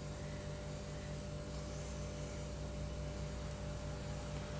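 Steady low hum with a faint hiss, unchanging throughout: background room tone with no distinct events.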